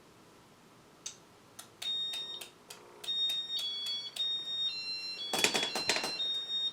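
Electronic beeper of a Casablanca IntelliTouch ceiling-fan control playing a run of short, high beeps that step up and down in pitch like a little tune as demo mode starts. A burst of clicking comes near the middle of the tune.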